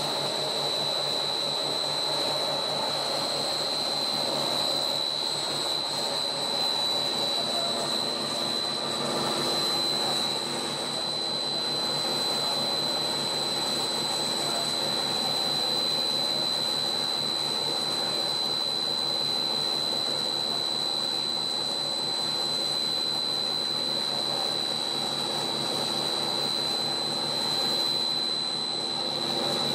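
Monolayer blown film extrusion line running: a steady industrial drone with a constant high-pitched whine.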